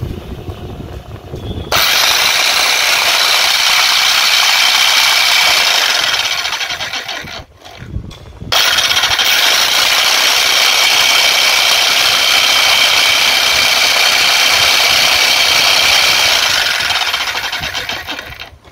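Freshly repaired 16 kg electric breaker hammer running on mains power, switched on twice, for about five and then about eight seconds, each run starting abruptly and tailing off after release. It runs steadily and well, with no problem to be heard.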